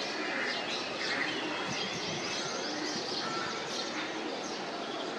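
Several small birds chirping and twittering, many short high chirps overlapping, over steady outdoor background noise.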